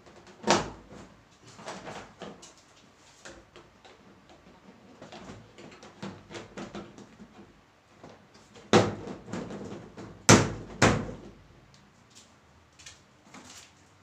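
Plastic panels of a five-tier plastic cabinet being fitted and pressed into place, clacking and knocking: a sharp knock just after the start, lighter clicks scattered through, and three loud knocks in quick succession about two-thirds of the way in.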